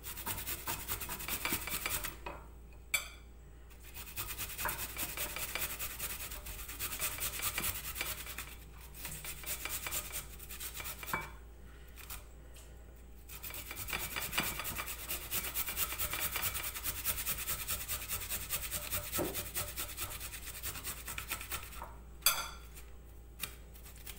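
Garlic cloves grated on a flat metal hand grater: fast, rasping strokes in long runs, broken by three short pauses. A sharp knock falls near the start and another near the end.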